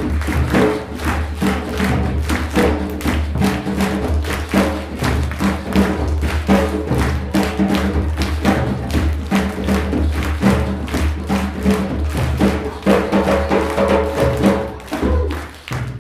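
Hand drums and a large gong played together in a fast, steady rhythm at about four to five strokes a second, with the gong's low ringing sustained underneath. It stops abruptly near the end.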